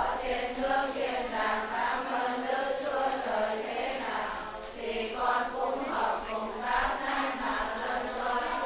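A choir of many voices singing a hymn together.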